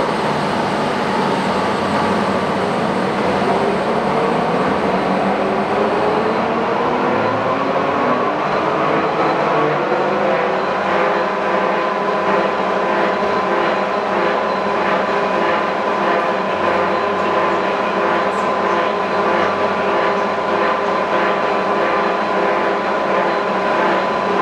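Geminis GE 650 heavy engine lathe running under power, a steady mechanical whir from its geared headstock drive. A whine in it rises in pitch over several seconds, then holds steady.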